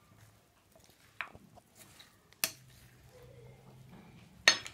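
A serving spoon stirring chopped fruit and boiled potato in a glass bowl, with a few sharp knocks of the spoon against the glass: a light one about a second in, a louder one about halfway, and another near the end.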